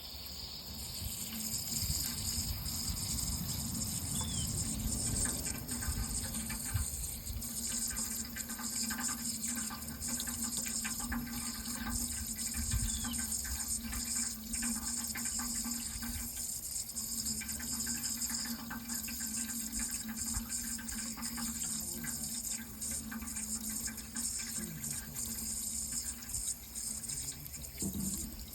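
Running water, a steady, even flow with a low steady hum underneath.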